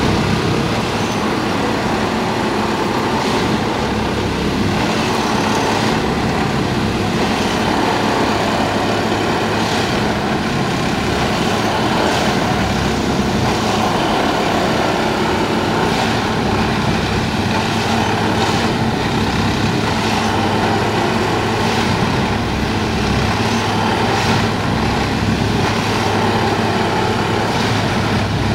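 A Plasser & Theurer Duomatic 08-32 C track tamping machine working: its diesel engine and hydraulics run steadily and loudly while the tamping tines vibrate and pack ballast under the sleepers, with occasional faint knocks.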